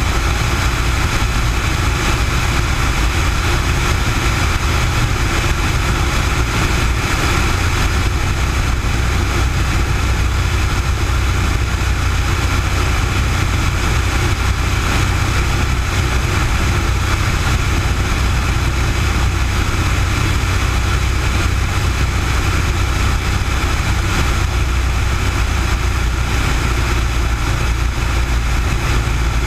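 Cessna 172 single-engine propeller plane in flight: its piston engine and propeller drone steadily and evenly, picked up by a camera mounted outside the cabin on the fuselage.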